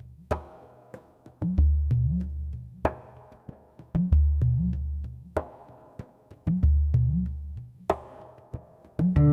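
Background music: an electronic track with a heavy, repeating bass-drum pattern and crisp percussion clicks, and a keyboard chord coming in near the end.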